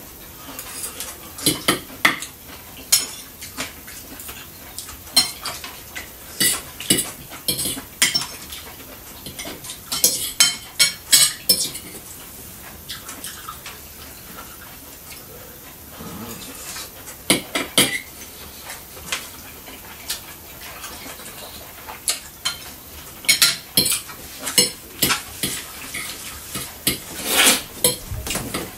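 Forks clinking and scraping against dinner plates as two people eat, in irregular clusters of sharp clinks with quieter stretches between.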